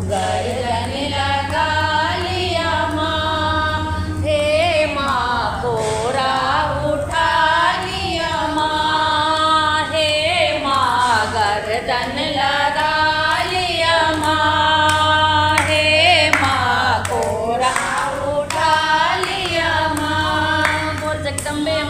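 A group of women singing a devotional folk song together, their voices holding long notes that glide up and down, over a steady low hum.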